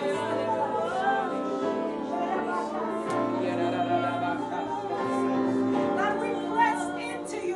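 Worship music with a singing voice over held, sustained chords; the chords shift about three and five seconds in.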